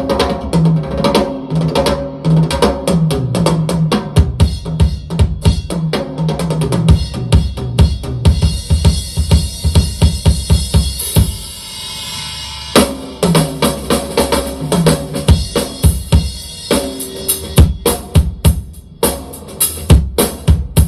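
Drum-heavy music with a driving kick, snare and bass line played through a TPA Shark TP 450 single 10-inch line array speaker during a sound check. About eight seconds in, the drums drop out and leave held notes for a few seconds. Then the beat comes back in.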